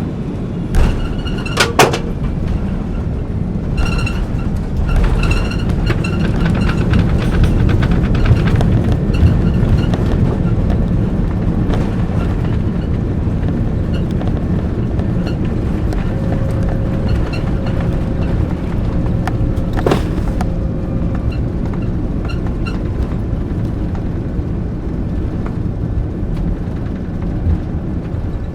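Jet airliner cabin noise during landing: sharp knocks and rattles near the start, then a loud roar that swells over a few seconds and slowly eases.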